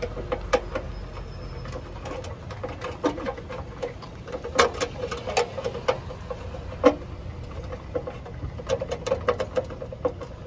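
Screwdriver working a terminal screw on the metal meter can, fastening the grounding wire: irregular sharp metallic clicks and scrapes, several a second at times, the loudest about seven seconds in.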